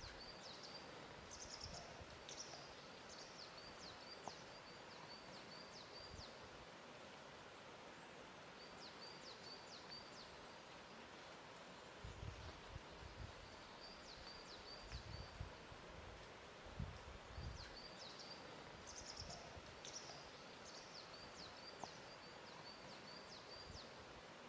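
Faint lake-shore ambience: a soft steady wash of water, with a few low, soft lapping sounds in the middle. A small songbird repeats a high, quick chirping phrase again and again.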